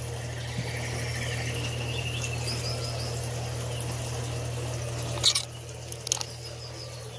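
Ambience of an indoor rainforest exhibit: a steady low hum with running water from a fountain and a few faint bird-like chirps. The hum drops away about five seconds in, and two sharp clicks follow.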